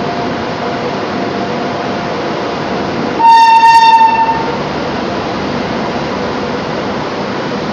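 A train horn sounds one blast of just over a second, about three seconds in, over the steady running noise of a train rolling slowly along a station platform.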